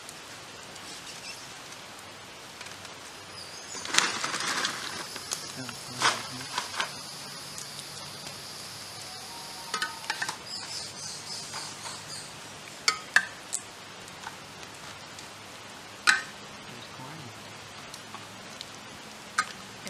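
Scattered clicks and clinks of utensils against plates and cookware while people eat, a dozen or so sharp strikes spread over the stretch, with a thin steady high note behind them for several seconds in the middle.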